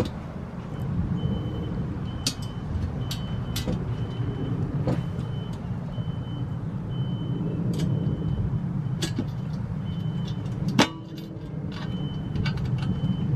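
A steady low rumble with scattered sharp metallic clicks as nuts are fitted to the bolts joining a cast iron grill's firebowl and base; the loudest click comes near the end. A faint high chirp comes and goes behind them.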